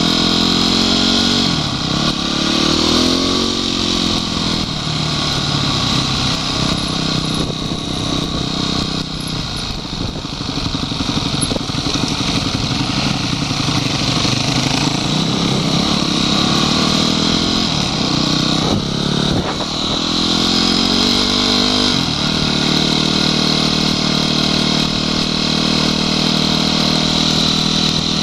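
Honda CRF250X enduro bike's single-cylinder four-stroke engine running on the move, its note rising and falling with throttle and gear changes.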